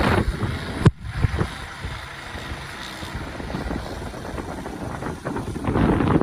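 Strong wind gusting and buffeting the microphone, rising and falling, with a sharp knock about a second in after which it drops quieter before building again near the end.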